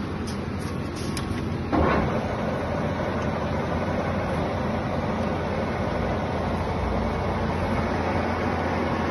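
A large TOS centre lathe running, with a steady hum and mechanical whirr from its drive and turning spindle. About two seconds in there is a sudden loud burst, after which the running noise is a little louder.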